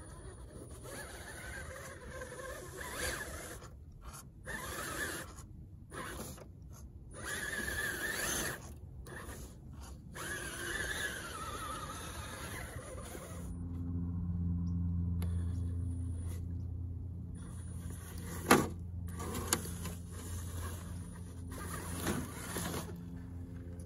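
Element Enduro radio-controlled crawler truck climbing loose dirt: its small electric motor and gears whirring, with tyres scrabbling over the soil. From about halfway through, a steady low motor hum holds.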